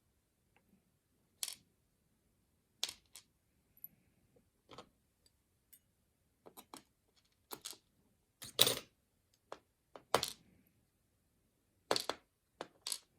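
Scattered sharp metallic clicks and clinks, about a dozen, as small parts of a picked Lockwood 215 padlock are handled while it is taken apart.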